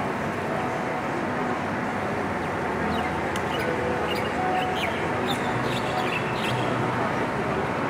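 Steady city ambience: a dense hum of distant voices and traffic, with a scatter of short high chirps in the middle.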